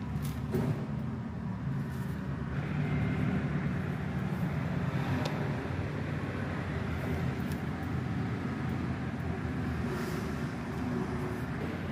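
Road vehicle engine running, a steady low rumble with traffic noise, and a couple of faint short ticks midway.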